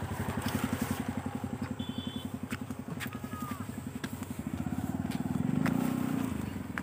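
Small motorcycle engine running at low revs with a rapid, even beat, swelling a little about five seconds in. A few short high chirps sound above it.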